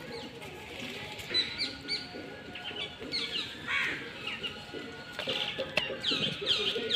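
Small birds chirping in short, high, falling calls, more often in the second half, over faint background music.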